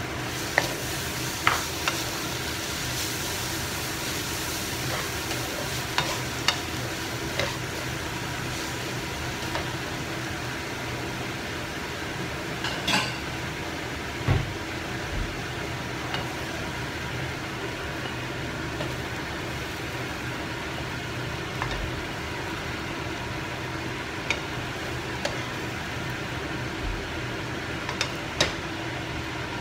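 French beans and minced meat sizzling steadily in a wok as they are stir-fried, with a wooden spatula scraping and knocking against the pan every few seconds.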